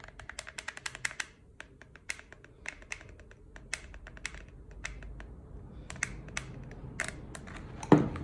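Clicking of a hot glue gun's trigger being squeezed: a quick run of clicks in the first second, then scattered single clicks. A single heavy knock near the end, the loudest sound, as something is put down.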